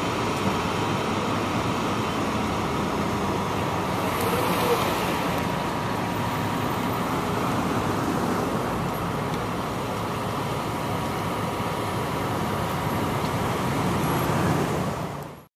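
Steady vehicle engine and traffic rumble, with a faint steady whine running through it.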